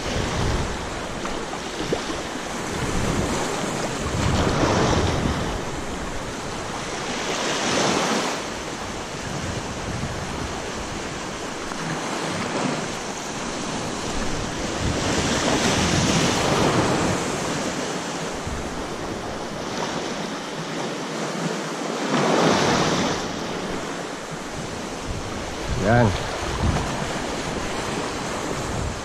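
Small sea waves washing in around the wader's legs in shallow surf, swelling every few seconds, with strong wind buffeting the microphone. A brief pitched sound comes near the end.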